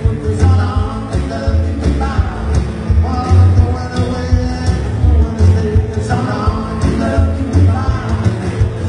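Rock and roll music from a band, with singing over a pulsing bass line.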